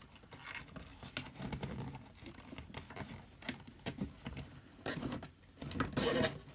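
Plastic cable tie being threaded through holes in a plastic RC car body shell and worked by hand: irregular small clicks and scratching of plastic on plastic.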